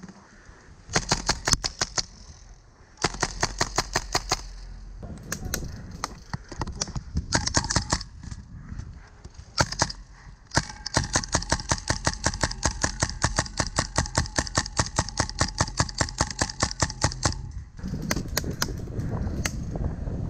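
Airsoft electric guns firing: several short bursts of rapid, evenly spaced shots, then one long full-auto burst of about seven seconds starting about ten seconds in, with the gearbox motor whining under the shots.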